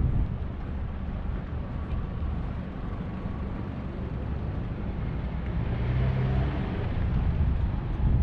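Snowy city street sound: a steady low traffic rumble, with a motor vehicle passing and growing louder through the second half.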